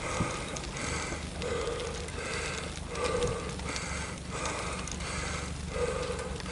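A cyclist breathing hard and rhythmically while climbing a hill on a bicycle, each breath loud and steady in pace, over a constant background of road and wind noise.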